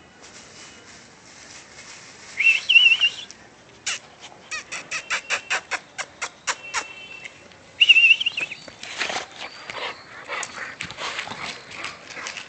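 Puppies and their father dog at play. Two loud, high, wavering whines come a few seconds apart, with a quick run of yips at about four a second between them, and then scuffling noise through the last few seconds.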